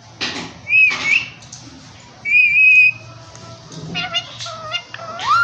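Indian ringneck parakeet whistling: a short wavering whistle about a second in, then a louder, steady whistle held for about half a second, followed by a few shorter calls and a rising whistle near the end.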